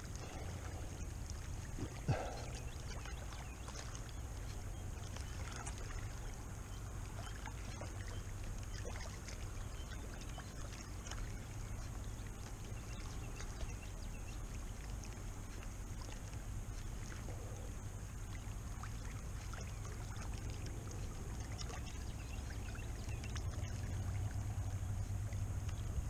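Wind rumbling on the camera microphone over quiet lakeside ambience. There are faint scattered ticks and a steady thin high hiss, and the rumble swells a little near the end.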